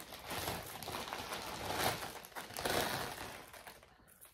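Packaging crinkling and rustling as hands dig through a bag of jewelry, dying away near the end.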